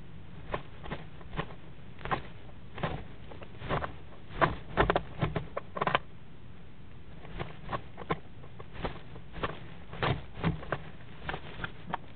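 Barred owl shifting about inside a wooden nest box: irregular scratches and rustles, thickest between about four and six seconds in.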